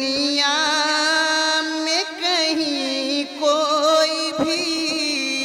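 A man's solo voice singing a naat, drawing out long held notes with a wavering, ornamented pitch and short breaks for breath, with no instruments.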